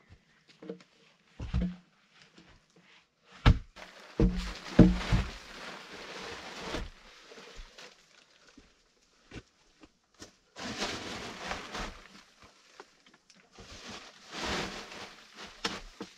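Heavy wooden log knocking and being set down, a series of dull thumps a few seconds in, followed by longer stretches of scraping and plastic tarp rustling as the log is worked into place.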